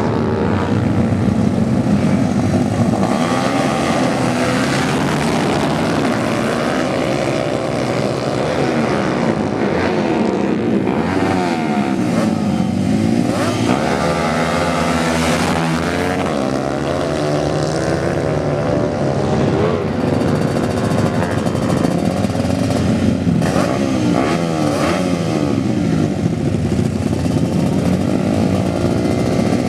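Several tuned racing motorcycle engines revving hard at high rpm, their pitches rising and falling and crossing one another as the bikes accelerate and pass by.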